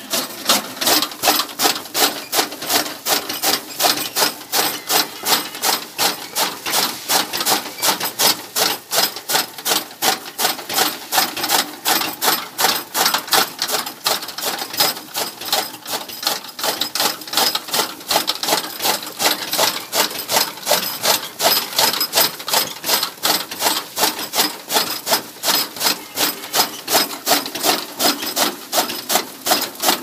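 A belt-driven chaff cutter chopping green fodder grass, its flywheel knives slicing through the stalks in a steady, regular rhythm of about three chops a second.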